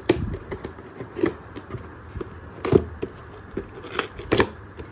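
Cardboard gift box being opened by hand: about five sharp knocks and clicks, with scraping and rustling between them, as the cardboard flaps are pushed and pried open.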